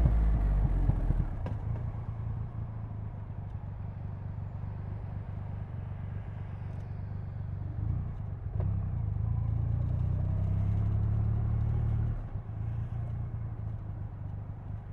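Triumph Rocket 3's 2.5-litre inline three-cylinder engine easing off at the start, then running at low revs with a steady low rumble. The rumble rises slightly for a few seconds past the middle and settles back down near the end.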